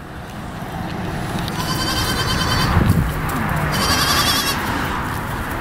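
Goat kids bleating faintly under a steady rustling noise as a hand strokes a goat's head.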